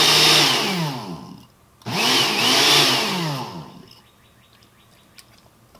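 Countertop blender running in two pulses on a thick avocado and sour cream sauce, its motor pitch dipping and rising as it churns; it stops shortly after three seconds in, followed by a few light clicks.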